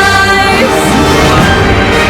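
Loud instrumental music without singing: sustained notes, with a held high note ending about half a second in as the music moves on.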